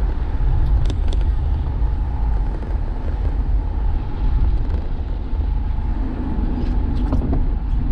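Steady low rumble of a car driving, heard from inside the cabin, with a few faint clicks about a second in and again near the end.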